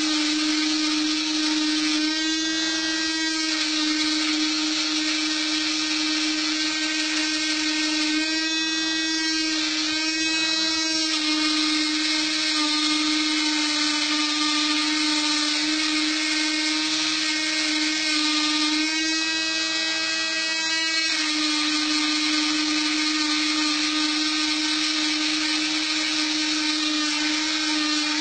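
Spindle motor of a small DIY GRBL CNC machine running with a steady high whine. Several times the stepper-driven axes move, adding a second set of tones for a second or two.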